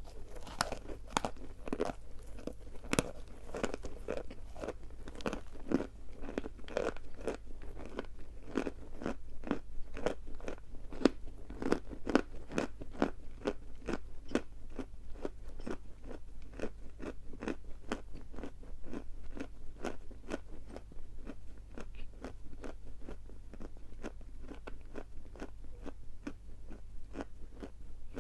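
Edible chalk being bitten and chewed close to the microphone: a steady run of dry crunches, several a second, turning duller over the last several seconds as the chalk is ground down.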